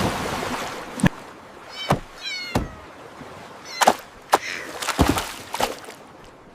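A cat mews in a few short, high, wavering calls about two seconds in, among a series of sharp knocks and taps.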